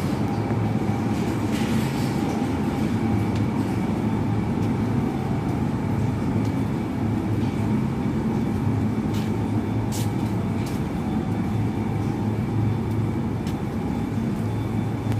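A row of electric motors driving pumps, all running together: a loud, steady machine-room hum with a constant whine above it. A few light clicks sound about two-thirds of the way through.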